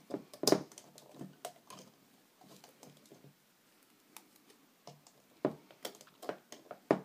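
Small plastic clicks and taps from a rubber-band loom and its hook being handled as bands are picked up and fitted over the pegs. The clicks come irregularly, the loudest about half a second in, with a cluster near the end.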